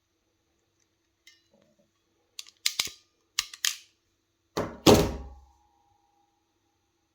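Preciva DEM49XN hexagonal ratchet crimping pliers closing on a wire ferrule: a few sharp ratchet clicks, then a loud snap about five seconds in as the ratchet releases, with a faint metallic ring after it.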